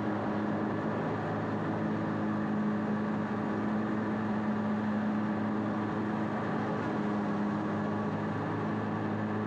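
Bad Boy ZT Elite zero-turn mower's engine running steadily at a constant speed while mowing, a steady hum with a strong low tone.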